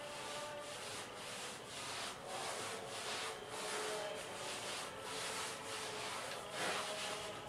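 Damp grout sponge scrubbing over porcelain wall tile in repeated circular strokes, a run of soft swishes a bit under two a second: the excess grout is being worked off the freshly grouted joints.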